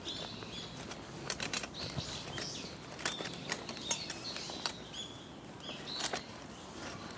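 Small birds chirping repeatedly, with irregular sharp crackles and pops from the wood-fired grill throughout.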